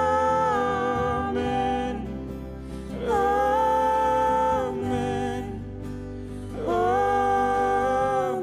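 Worship music: sung voices holding three long notes, one after another with short gaps, over a steady keyboard accompaniment.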